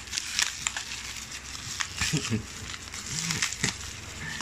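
Bubble wrap around a parcel crinkling and crackling as it is squeezed and pulled at by hand and foot, with scattered sharp clicks.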